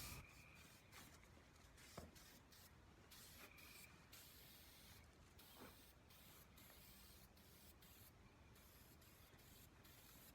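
Near silence: low room tone with a couple of faint clicks, about two seconds in and again near the middle.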